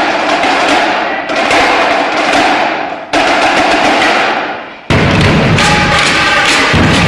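Marching drumline playing loudly: ringing crash cymbals that fade and are struck afresh about 3 seconds in, then bass drums and snares join the cymbals with a steady pounding beat from about 5 seconds in.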